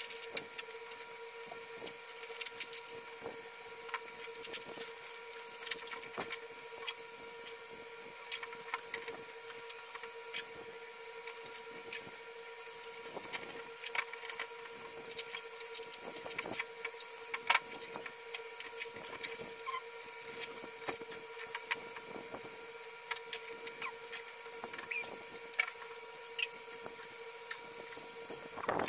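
Plastic parts of a toy slide being handled and fitted together: irregular light clicks and knocks, over a steady electrical hum.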